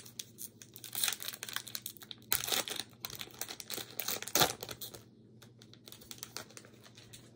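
Foil wrapper of a Panini Prizm basketball card pack crinkling as it is handled and opened, in an irregular run of crackles that is loudest about four and a half seconds in and quieter after about five seconds.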